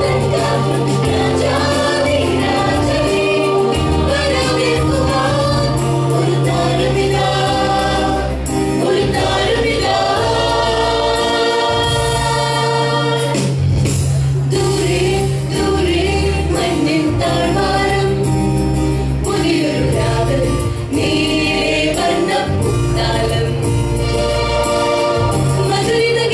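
Mixed choir of women and men singing over a low, sustained accompaniment that drops out briefly a few times.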